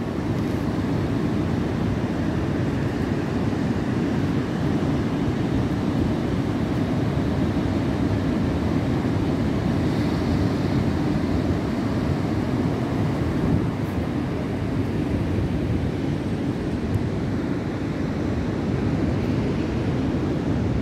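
Surf from a rough, heavy sea breaking and washing up the beach, a steady rushing noise, with wind rumbling on the microphone.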